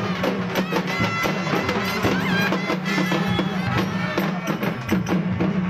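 Live traditional festival music: shrill reed pipes play a held, bending melody over a steady drone, with dense drumming underneath.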